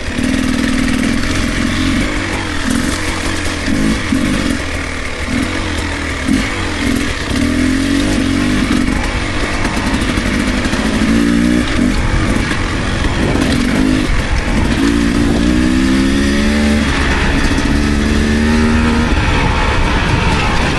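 Beta enduro motorcycle engine being ridden off-road, its pitch rising and falling with the throttle, with several rising pulls in the second half as it accelerates.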